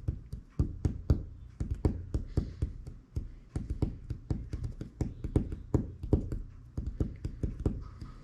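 Irregular light taps and knocks, several a second, from hands handling a phone and small objects on a work surface.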